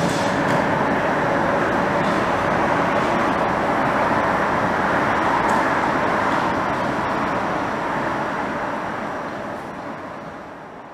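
Hitachi Rail Italy driverless metro train running away along the track: a steady rushing rumble with a few clicks near the start, fading out towards the end.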